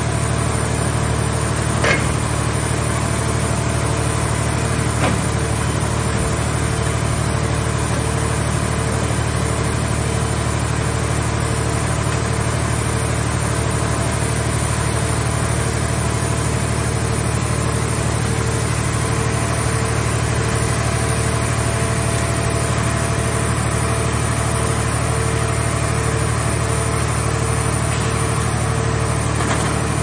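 Towable car-shell baler's hydraulic power unit running with a steady, loud low hum as the grab crane works, with two short metal clanks about two and five seconds in.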